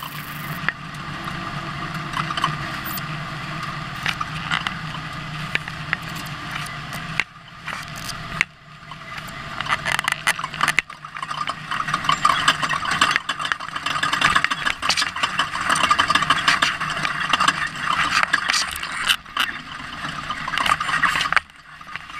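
Ford Ranger off-road race truck driving over rough ground: a dense, steady clatter of rattling and scraping over the truck's running. It dips briefly twice about seven and eight seconds in, then grows louder and rattlier until it drops off near the end.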